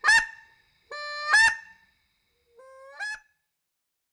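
Goose honks: three two-note calls, each a held note that jumps up in pitch, the third one fainter.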